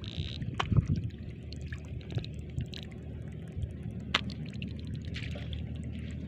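Shallow muddy water sloshing and trickling, broken by a few short sharp splashes, the loudest cluster about a second in. A low steady rumble runs underneath.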